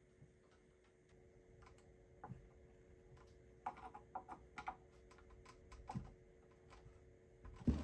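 Faint scattered clicks and taps of a hand screwdriver working a small metal connector that fixes a pegboard to a pine shelf, with a quick run of clicks about four seconds in and a louder knock near the end.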